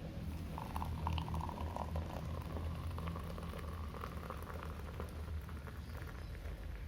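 Water boiling in a pot on a camping stove: a dense crackle of bubbling over a low steady rumble, the bubbling busiest for the first five seconds or so.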